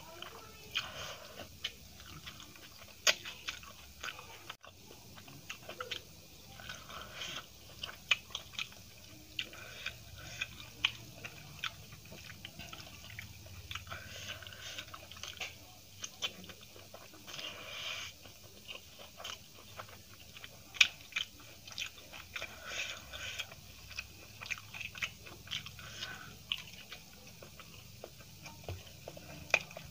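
Close-miked chewing of a mouthful of rice and potato curry eaten by hand, with many short wet mouth clicks and lip smacks.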